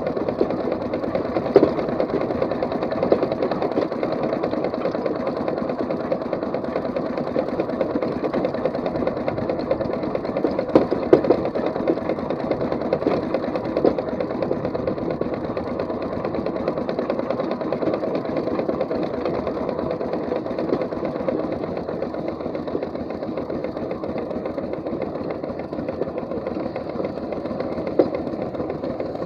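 4-inch scale McLaren steam traction engine running as it is driven, a steady fast mechanical clatter and chuff from its motion and exhaust. A few sharp knocks stand out now and then.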